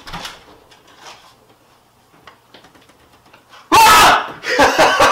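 A quiet room with faint clicks and rustles, then, about three and a half seconds in, a sudden very loud shout from young men bursting in, followed by more loud shouting.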